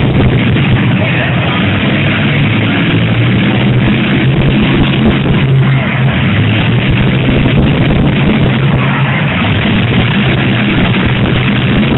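Loud rock music over a public-address system, mixed with the steady racket of the derby cars' engines running under it.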